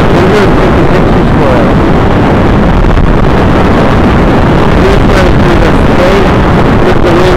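Strong wind buffeting the microphone of a camera riding high on a parasail: a loud, steady rush with a few short gusts.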